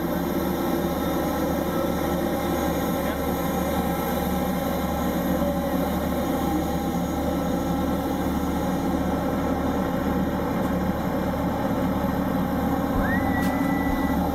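Steady drone of a parked Airbus A320 airliner's running machinery on the apron: a constant low hum with a faint high whine.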